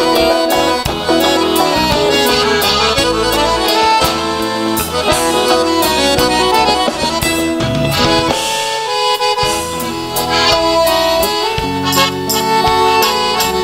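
Live gaúcho dance music led by two piano accordions, with acoustic guitar, electric bass and drums. The bass and drums drop out briefly about eight seconds in.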